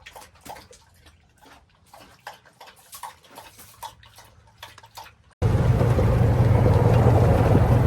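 Scattered light clicks and ticks. About five seconds in, a utility vehicle's engine cuts in suddenly, running steadily and loud with a low hum and rushing noise as it drives.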